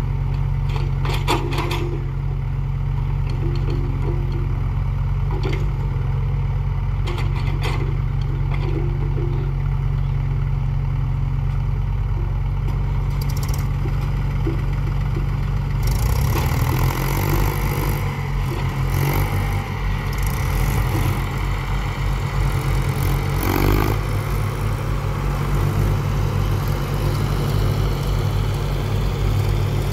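Diesel engines of excavators and farm tractors running steadily, with scattered knocks and clatter as the excavator bucket dumps soil into a tractor trailer. About halfway through, the engine noise grows louder and rougher.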